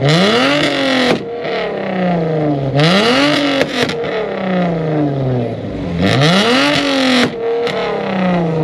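Mercedes-Benz sedan's engine revved hard three times while the car stands still. Each rev climbs quickly and then falls back slowly over about two seconds.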